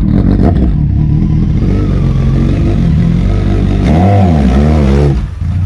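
Kawasaki ZX-12R motorcycle's inline-four engine running loudly, its pitch rising and falling for a second or so about four seconds in, before the level drops near the end.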